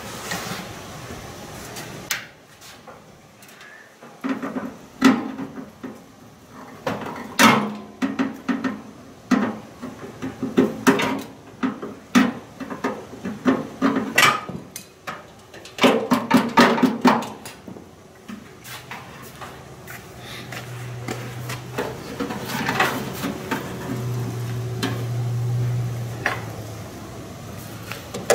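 Repeated knocks, taps and clatter as the casing of a microwave oven is handled, shifted and turned on a workbench. Some knocks come singly and some in quick runs. In the last third a low steady hum comes in.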